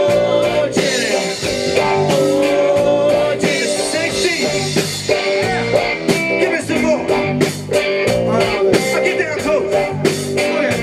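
Live rock band playing an instrumental break of a blues-rock song: electric guitar lead with wavering, bending notes over drums and held keyboard chords.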